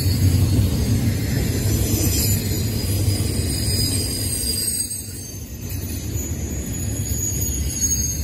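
Double-stack intermodal container well cars rolling past: a steady low rumble of wheels and cars that eases briefly about halfway through, with faint high wheel squeals over it.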